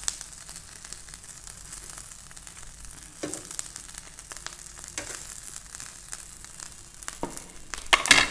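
Melted butter and chicken juices sizzling on a hot perforated metal stovetop grill plate, with a fork clicking and scraping against the grill and plate as the grilled chicken pieces are lifted off. A louder metal clatter comes near the end.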